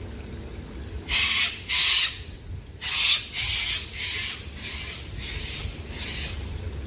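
A bird giving a series of about seven harsh calls about half a second apart; the first three are loudest and the rest trail off.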